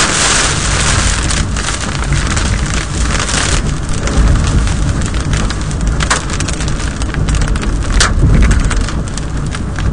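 Hail and heavy rain pelting the car's roof and windshield, heard from inside the car over a low rumble. It starts as a dense downpour, and from about four seconds in turns into more separate, sharp hailstone hits, the loudest about six and eight seconds in.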